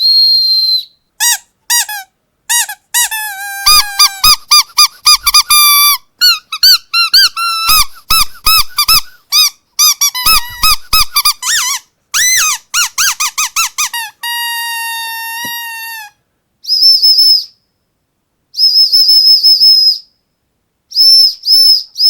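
Squeaky dog toy squeezed over and over in quick runs of short squeaks, ending in one long held squeak. A high whistle is blown briefly at the start and again in several short blasts in the last few seconds.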